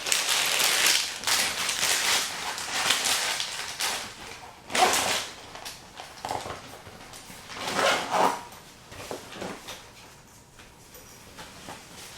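Soft plastic bait packs and tackle being handled: a crinkly rustle of plastic packaging for the first few seconds, then two louder short sounds about five and eight seconds in.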